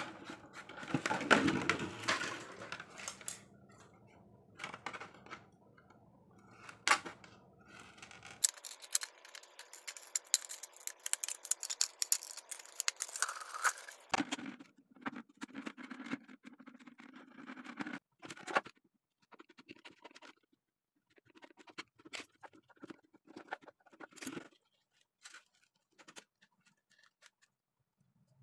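Thin clear plastic of a cut-up water gallon crackling, clicking and tapping as it is handled, in irregular bursts with a spell of fine, continuous crinkling in the middle.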